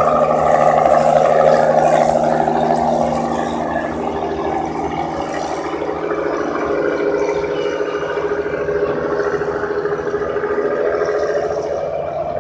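Fishing boat engine running steadily with a constant low drone, a little louder in the first three seconds and then easing off slightly.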